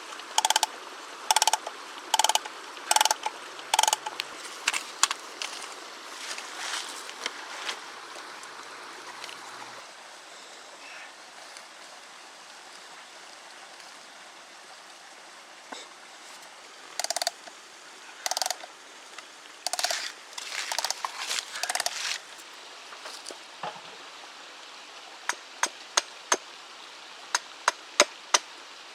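Hand tools working wood: a run of short, even strokes about one every three quarters of a second, another bout of strokes later, and sharp knocks about twice a second near the end.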